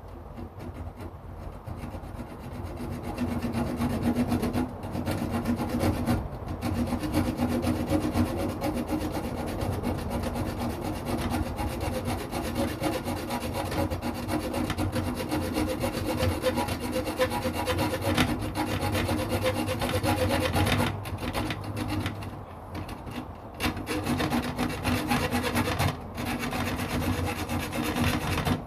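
Hand hacksaw cutting through the metal grill net of a fire pit in quick back-and-forth strokes, with a steady ringing tone under the strokes and a few short pauses.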